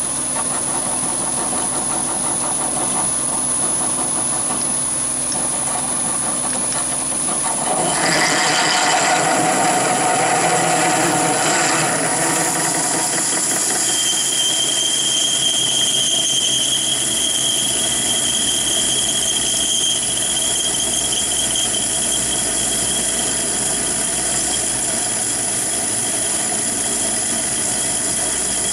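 Chinese mini lathe running under load as a 3/4-inch HSS twist drill cuts into 316 stainless steel; the cutting noise grows louder about eight seconds in. Around halfway through, a high steady screech sounds for several seconds: the lathe's drive belt slipping on its pulleys.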